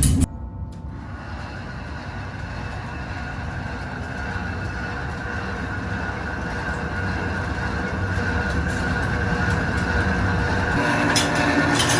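Brass-recycling factory machinery running steadily: a rumbling hum with a faint steady whine that slowly grows louder. A louder sound cuts off abruptly right at the start, and a lower hum joins near the end.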